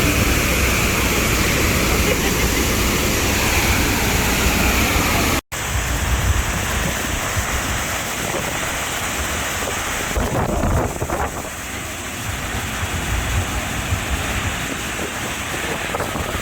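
Steady rushing noise of wind buffeting the microphone over sea water from a moving boat. The sound drops out for an instant about five seconds in, then resumes a little quieter.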